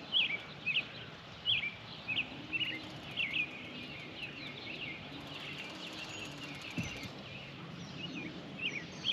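A bird calling a quick series of short, sharp chirps, about two a second, that fade out after a few seconds, over faint outdoor background noise.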